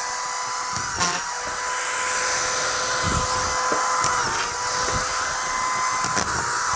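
Corded drywall screw gun running continuously with its trigger locked on, giving a steady whine. Its pitch dips briefly a few times as the clutched tip engages under pressure to drive screws into ceiling drywall.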